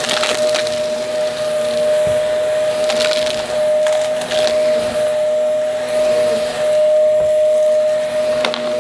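Vacuum cleaner running with a steady motor whine, crunching and crackling as it sucks up debris.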